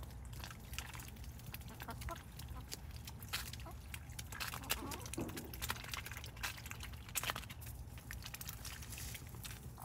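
Ducks and chickens feeding on water hyacinth in a tub: many quick clicks and snaps as bills peck and tear at the leaves, with a few soft low calls from the birds.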